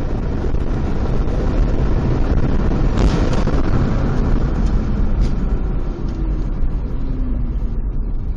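Steady road, wind and engine noise of a vehicle driving at speed, heard from inside the cab, with a brief sharp crack about three seconds in.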